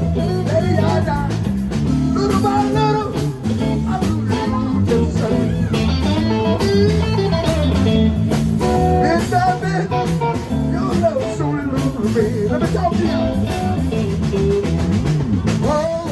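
Live blues band playing an instrumental passage: electric guitars over a steady stepping bass line.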